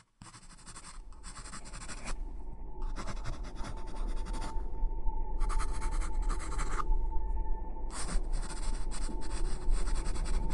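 Film soundtrack sound design: a low rumbling drone under a steady high tone, with four long bursts of scratchy hiss, each a second or two long with short gaps between. The whole builds gradually in loudness.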